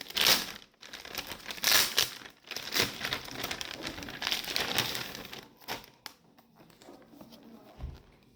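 Plastic packaging on a speaker box crinkling in repeated bursts as it is handled and pulled at, loudest in the first half, then dropping to quieter rustling after about five and a half seconds.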